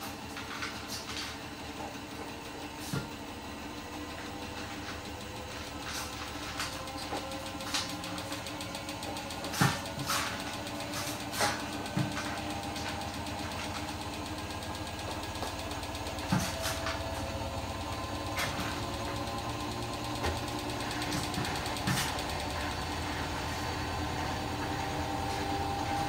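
Hotpoint WMFUG 942 9 kg washing machine's drum motor turning and gradually speeding up, a whine that rises slowly in pitch. Scattered clicks and knocks sound over it, the sharpest about a third of the way in and again past the middle.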